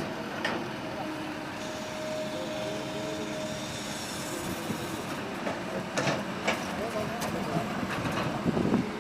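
Heavy excavator machinery running steadily, with several sharp metal clanks about six seconds in and near the end. Voices carry faintly underneath.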